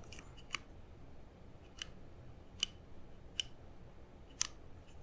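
Slow single keypresses on a GMMK Compact mechanical keyboard with lubed silent linear switches built from Halo housings and MX Red stems: about six soft, muted clicks, unevenly spaced.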